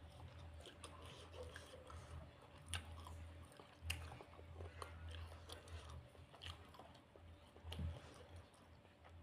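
Faint chewing with small scattered mouth clicks of someone eating rice and side dishes, over a low steady hum.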